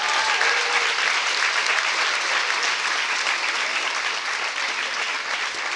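Audience applauding steadily, with a few voices calling out over it at the start.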